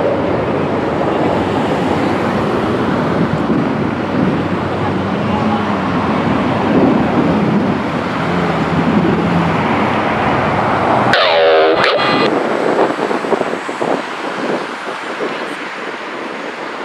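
Steady jet engine noise from the Snowbirds' formation of CT-114 Tutor jets passing overhead. About eleven seconds in, the sound cuts abruptly to thin VHF radio audio: a brief warbling tone, then open-channel static with faint crackles.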